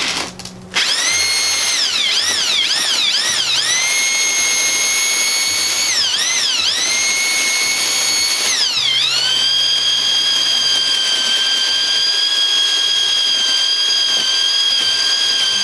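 Handheld electric drill mixer with a paddle stirring a cement-and-sand concrete mix in a plastic bucket. The motor whine stops briefly just after the start, then speeds up and slows several times as the trigger is eased. After a dip about nine seconds in it runs steadily at a slightly lower pitch.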